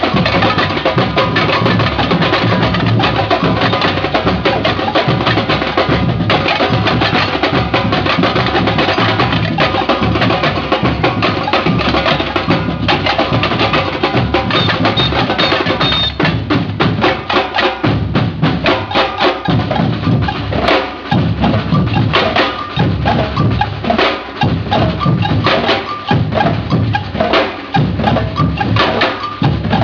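Drum troupe playing live: deep strapped-on bass drums under a fast, busy run of sharp clicking strokes, the bass beats standing out more in the second half.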